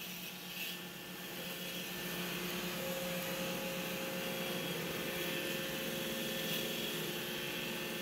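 iRobot Roomba i3+ robot vacuum cleaning a hardwood floor: the steady whir of its vacuum motor and brushes with a faint thin whine, growing a little louder over the first couple of seconds and then holding even.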